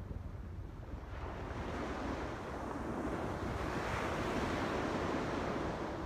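Ocean surf on a sandy beach: a wave breaks and washes up the shore, its rushing hiss building from about a second in, peaking around the middle and easing near the end.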